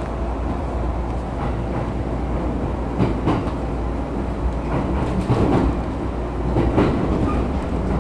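Cabin noise of an E231 series electric train running: a steady low rumble with a few sharp clicks.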